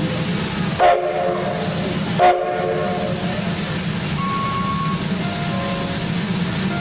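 C11 steam locomotive's whistle sounding two short blasts about a second and a half apart, over a steady background hiss.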